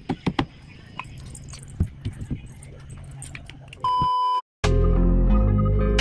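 Several sharp wooden knocks and taps during the first couple of seconds as boards are fitted into a wooden bed frame. About four seconds in comes a steady electronic beep lasting half a second, a brief cut to silence, and then loud background music.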